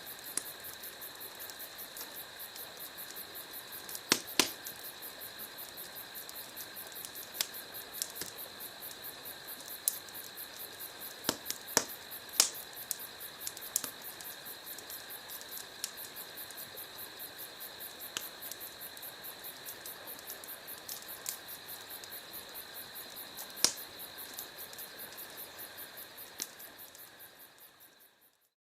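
Crickets chirping in a steady rapid pulse, with a few sharp pops from a crackling wood campfire now and then. The sound fades out near the end.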